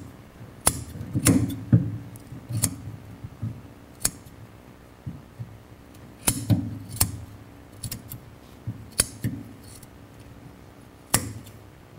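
Scissors snipping through thick jute carpet padding: about ten sharp snips at an uneven pace, with a rustle of the fibrous pad between them.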